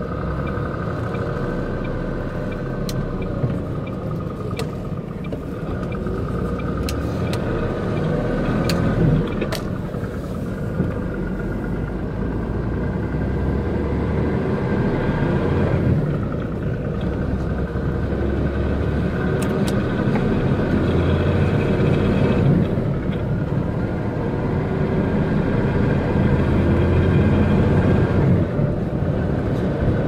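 Diesel engine and road rumble of a MAN concrete mixer truck heard from inside the cab as it pulls away from a junction and gathers speed, growing gradually louder. A few sharp clicks come through over the first twenty seconds.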